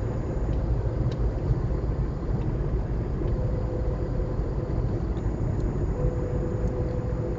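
Steady road noise inside a moving car cruising at city speed: low tyre rumble and engine running, with a faint steady hum in the middle and latter part.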